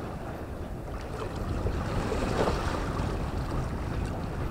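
Wind buffeting the microphone over sea water washing against a concrete breakwater: a steady, even rush with no distinct events.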